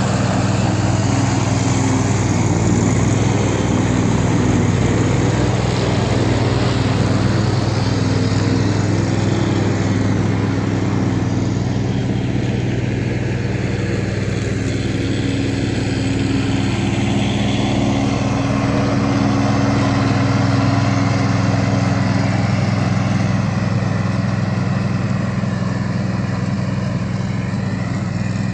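Stiga Park front-deck ride-on mower running steadily while mowing grass.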